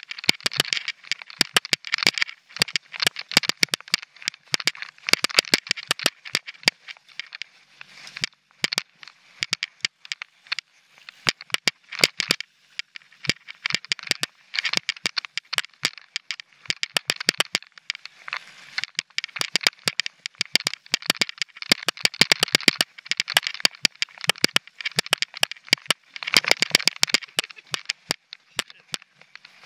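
Mountain bike rolling along a rocky dirt singletrack: a dense, irregular run of sharp clicks and rattles from the tyres and bike over grit and rock, over a steady hiss.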